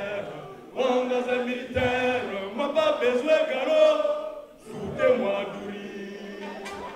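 A man's voice chanting a sung, half-spoken vocal line into a microphone, with short breaks just before a second in and about four and a half seconds in.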